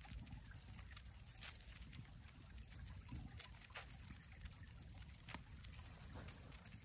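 Faint trickle of creek water, with a few soft clicks scattered through it and a low rumble underneath.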